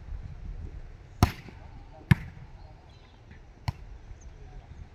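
A volleyball struck by players' hands three times during a rally: sharp slaps about a second in, about two seconds in, and again past halfway, the second the loudest.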